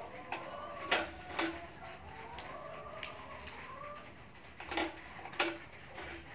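Scattered light clicks and knocks, about seven, from small toy cooking things being handled and set down during play, with a faint bird calling in the background.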